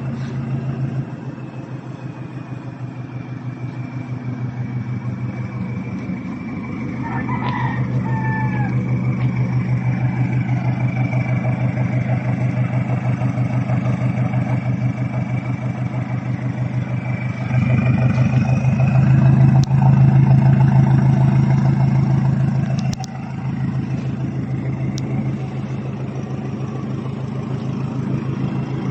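Toyota HiAce's 2KD four-cylinder turbodiesel running steadily through a newly fitted resonator and exhaust tips, a pulsing exhaust note. It grows louder about two-thirds of the way in for around five seconds, then drops back.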